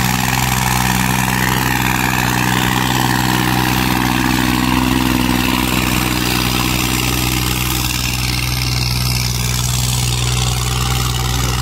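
New Holland 3630 tractor's diesel engine running steadily under load while it drags a disc harrow through ploughed soil.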